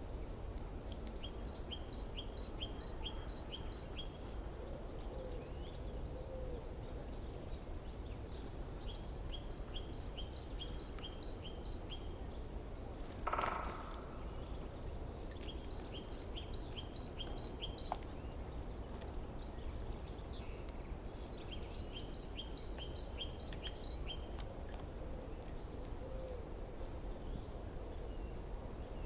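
A songbird singing a short phrase of about seven rapid, evenly repeated high notes, four times at intervals of about six seconds. A single brief call comes about thirteen seconds in. A steady low rush of water runs underneath.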